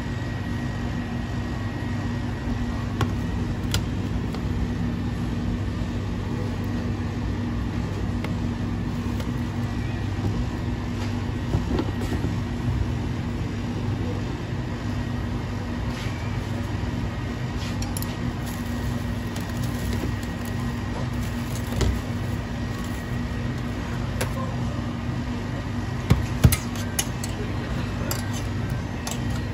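Steady hum of running kitchen machinery, with a few sharp clicks near the end as metal tweezers knock against a stainless steel pan.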